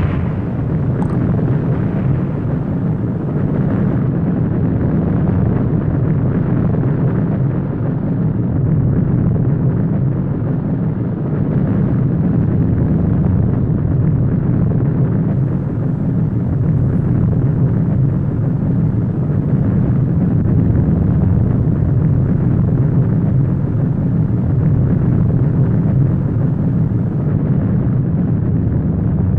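The fading end of an industrial explosion's blast, then a steady low rumbling roar with no further distinct bangs.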